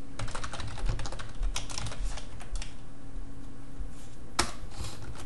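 Computer keyboard typing: a quick run of key clicks for the first two and a half seconds or so, then a pause and a single sharper key stroke about four and a half seconds in, over a faint steady hum.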